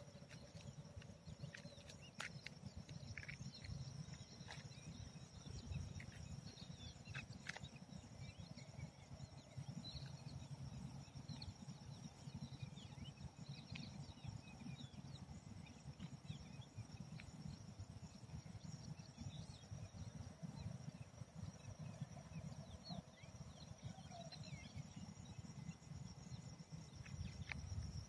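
Outdoor ambience dominated by wind buffeting the phone's microphone as a low, fluttering rumble, over a steady high insect drone and scattered faint chirps.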